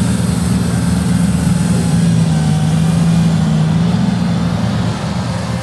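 Kubota tractor's diesel engine running steadily at a held speed while driving its snowblower, a constant engine hum over the rushing noise of the blower.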